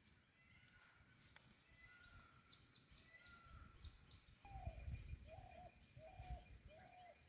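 Birds calling faintly outdoors: a quick run of about six short high chirps, then four lower, evenly spaced notes, over a low rumble.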